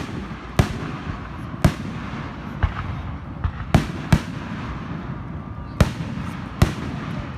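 Aerial fireworks shells bursting: a string of about eight sharp bangs at uneven gaps over seven seconds.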